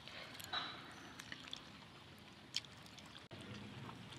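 Faint sounds of eating by hand: fingers mixing chicken curry and paratha on a banana leaf, with a few soft clicks and smacks.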